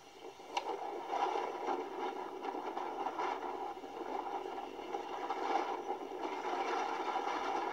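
Soundtrack of amateur tornado footage playing from a laptop speaker: a steady rushing noise, with a short click about half a second in.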